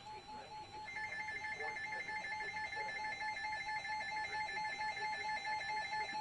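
Electronic alert tones from an emergency weather alert receiver. A pulsing mid-pitched beep runs throughout, and about a second in a higher, rapidly trilling two-tone signal joins it for about five seconds and then stops.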